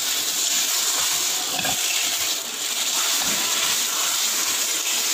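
Marinated beef sizzling as it sautés in an oiled frying pan, a steady hiss with a few faint knocks of the spatula against the pan.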